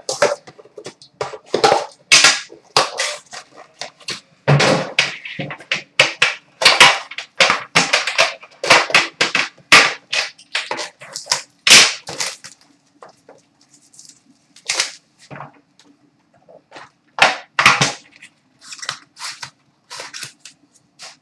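Hands opening a black metal card tin and handling its packaging on a glass counter: a run of sharp clicks, knocks and rustles, dense for the first twelve seconds or so, then sparser.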